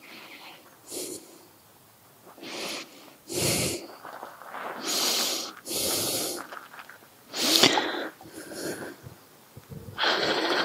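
Greased brake caliper slider pin being pushed in and out of its bore through the rubber boot, air squelching and puffing out past the boot in a series of short bursts roughly a second apart, one with a brief squeak.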